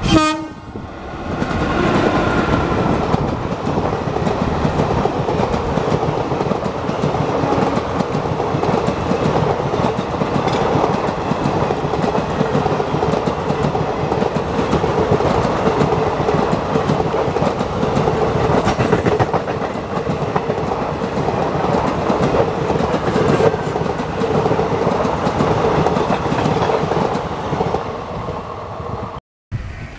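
An Indian Railways electric locomotive passes close by with a brief falling tone. Then comes a long, steady clickety-clack rumble of passenger coach wheels rolling over the rail joints as the train runs past. The rumble breaks off suddenly near the end.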